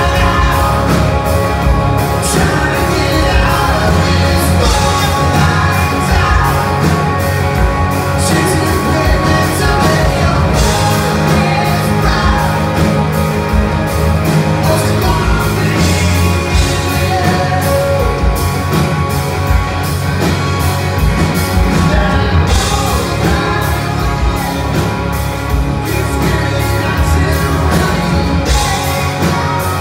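Live rock band playing at full volume: distorted electric guitars, bass guitar and a drum kit keeping a steady beat, with a male lead vocal singing over them.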